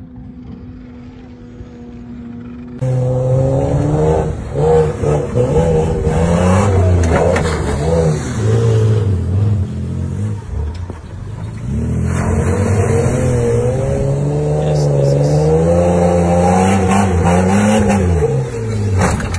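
Off-road 4x4 truck engines revving hard, the pitch rising and falling with the throttle. They come in suddenly about three seconds in, after a faint steady hum, and climb to a higher rev near the end.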